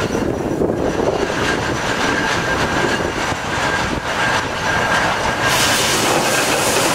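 Ruston Proctor steam excavator working: a continuous clattering of engine and gearing with a thin steady whine over it, and a hiss, likely steam, joining in about five and a half seconds in.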